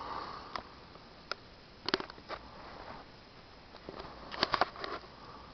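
A few scattered sharp clicks and taps over faint room hiss, with a small cluster about two seconds in and a denser run of clicks about four and a half seconds in.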